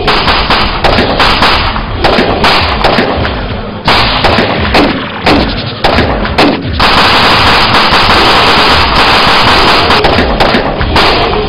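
Gunfire in a shootout: rapid volleys of automatic rifle fire mixed with pistol shots. It turns into an almost unbroken stretch of automatic fire about seven seconds in.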